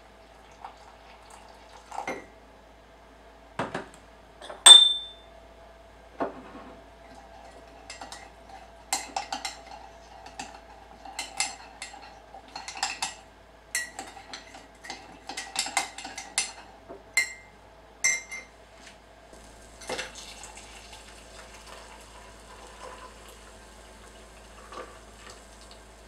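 A metal teaspoon clinking against a ceramic mug while stirring coffee: scattered sharp clinks, one loud ringing one, then quick runs of taps. From about three-quarters in, a steady soft hiss takes over.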